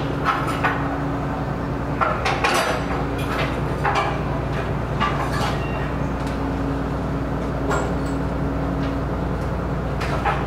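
Car ferry's engines and onboard machinery droning steadily at the berth, with a faint hum over it. Short knocks and metal clatters come and go, the busiest between about two and four seconds in.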